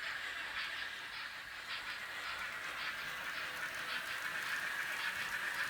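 Fleischmann N-gauge BR 01 steam locomotive running with its wagons, its sound decoder giving an even rhythmic chuff, about three a second, over a steady whine.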